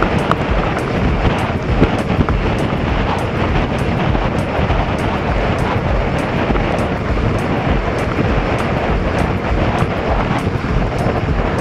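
Mountain bike rolling along a gravel track: a steady rush of wind on the microphone and tyre noise on loose gravel, with many small irregular clicks and rattles from stones and the bike.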